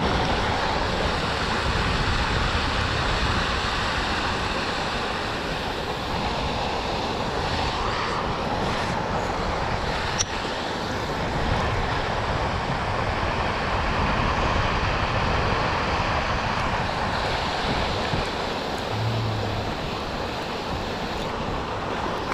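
Steady rushing noise of wind and moving water around a boat, with a short low hum near the end.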